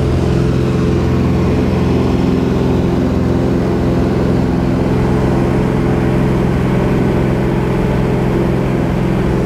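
Single-engine light aircraft's engine and propeller running steadily as the plane climbs away just after takeoff, heard inside the cabin.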